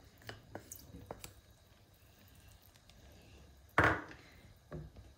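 Wooden spatula stirring soup in a nonstick pan, giving a few light clicks against the pan and one louder knock with a short ring nearly four seconds in.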